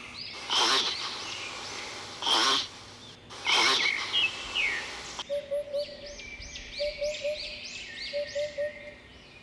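Three loud, short, noisy blasts about a second and a half apart, with small bird chirps behind them. Then, from about five seconds in, a small bird chirps over and over in quick rising-and-falling notes, with a soft low call repeating in short pairs beneath it.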